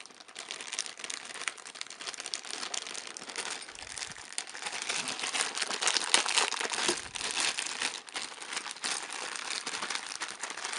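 Packaging crinkling and rustling as car-radio cables are unpacked by hand, with many small crackles, louder in the second half.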